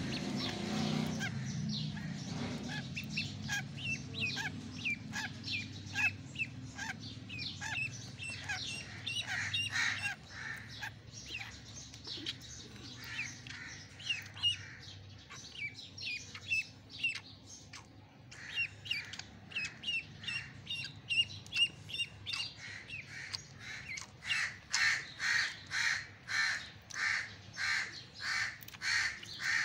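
Ducklings peeping: a run of short, high, falling peeps at about two a second, getting louder in the last few seconds. A low hum underneath fades away within the first ten seconds or so.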